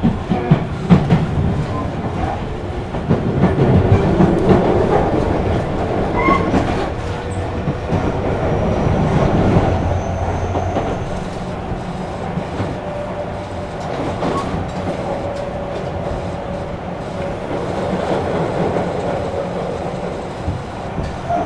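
Tobu electric commuter train running along the track: a steady rumble of wheels on rail, with a few rail-joint clicks about a second in and a faint steady motor whine.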